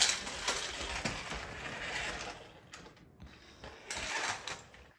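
Rattling, clicking clatter of plastic toys, starting sharply, loudest for the first two and a half seconds, with another burst about four seconds in.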